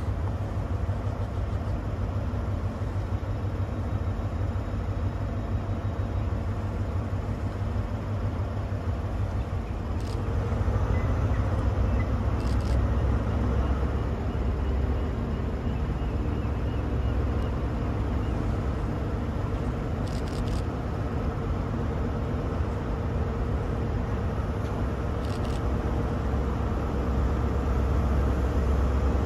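Diesel engine of a Class 43 HST power car running steadily with a low drone, getting a little louder about a third of the way through, with a few faint clicks over it.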